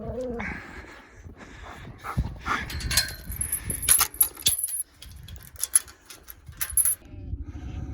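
A dog whines briefly at the start, followed by a run of sharp clicks and jingling rattles for several seconds, with a steady low hum coming in near the end.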